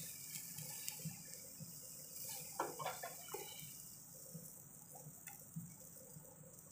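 Chicken pieces sizzling in a wire grill basket over hot charcoal, a steady faint hiss. A few short, louder sounds come about two and a half to three and a half seconds in.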